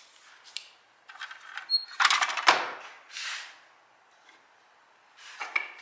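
A few short rustles and knocks from things being handled, the loudest about two seconds in, with no machine running.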